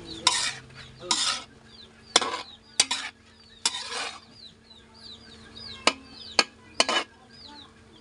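Metal spoon stirring sliced squid in a wok: a series of scrapes and sharp clinks of metal on the wok's metal side, some drawn out, some short knocks, about eight strokes in all.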